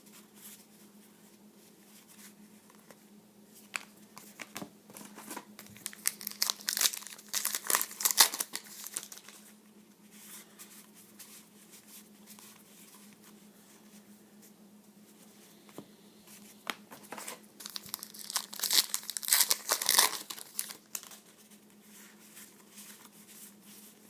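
Cellophane wrappers of 2011 Topps Allen & Ginter trading card packs crinkling and tearing as the packs are opened by hand. This comes in two bursts of a few seconds each, one about five seconds in and one about seventeen seconds in.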